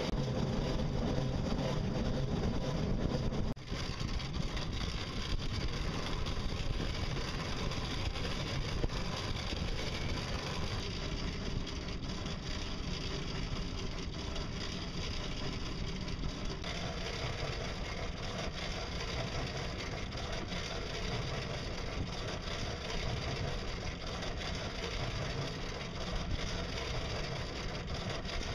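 Steady mechanical running noise of a small pedal- and solar-powered boat under way, changing abruptly about 4, 11 and 17 seconds in.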